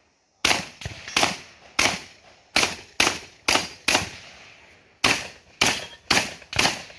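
A string of about a dozen shotgun shots fired in quick succession, roughly two a second, each with a short echo, and a brief pause about two-thirds of the way through.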